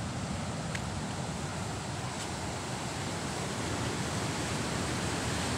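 Sea surf washing steadily over rocks and boulders at the shoreline, a continuous rushing with no separate strokes.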